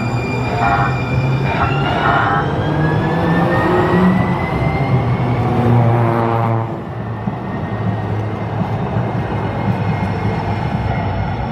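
Siemens light-rail trolley trains passing close by at a grade crossing: steady wheel and running noise, with a few short warning tones near the start and a rising electric motor whine over the next few seconds.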